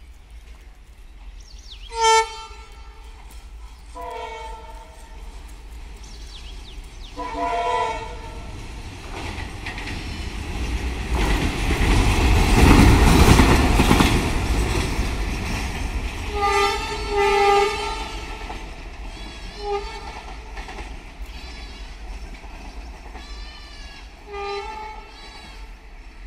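WDM3A diesel locomotive (ALCO 16-cylinder engine) running light through a station: its engine and wheels on the rails swell to a loud pass about halfway through, then fade. Several short horn blasts sound as it approaches and after it passes.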